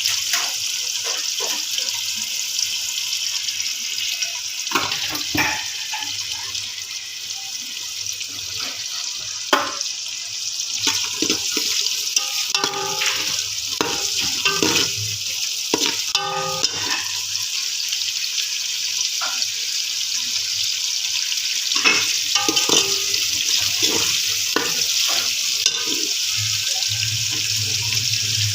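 Tap water running steadily into a sink, with frequent knocks and clinks of things being handled in the water.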